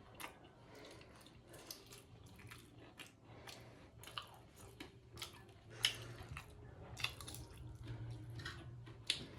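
Close-up mouth sounds of a person chewing a mouthful of mushroom and potato curry: irregular soft wet smacks and clicks.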